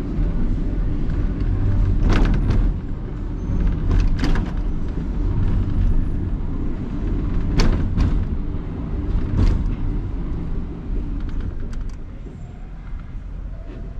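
Funicular car running on its track: a steady low rumble with sharp clicks and knocks every couple of seconds, getting quieter near the end.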